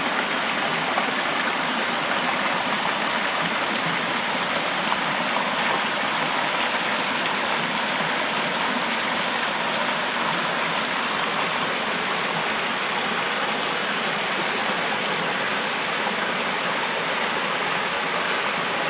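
Cascading mountain stream, water rushing steadily over rocks into a pool, an even full hiss.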